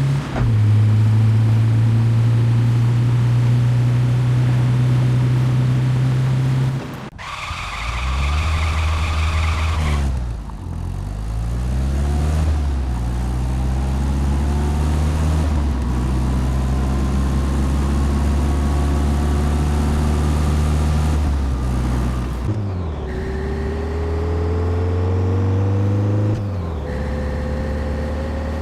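Car engine running, its pitch changing in several sudden steps, with a high tyre squeal about seven to ten seconds in.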